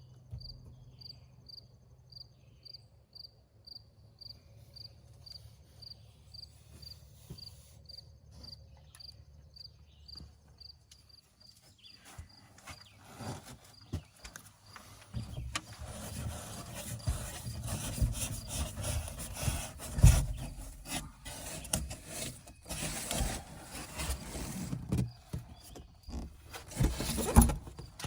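A cricket chirping steadily, about three chirps a second, in quiet surroundings; about halfway through, rubbing, scraping and knocking from hands-on work takes over, with two sharp loud knocks.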